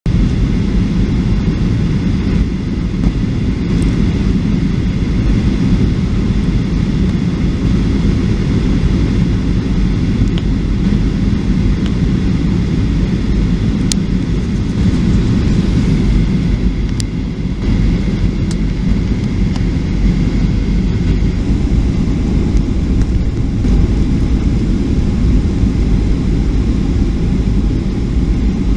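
Boeing 737-800 airliner's CFM56 turbofan engines running with a steady low rumble and a faint, steady high whine as the jet comes in to land. A couple of brief clicks fall about halfway through.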